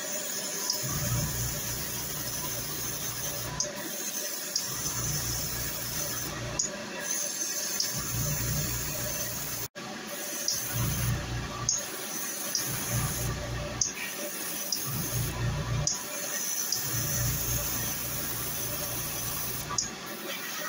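Gravity-feed airbrush spraying paint in a series of hissing passes, each one to four seconds long, broken by short pauses, with a low hum that drops out during the pauses.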